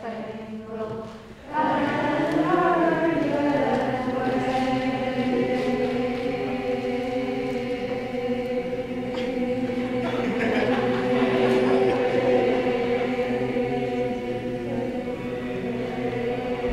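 Choral music with long-held voices, quiet at first and then swelling in loud about a second and a half in.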